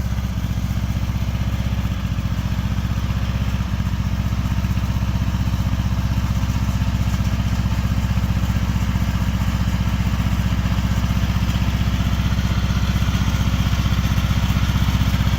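Riding lawn mower's small engine running steadily, with an even, rapid putter.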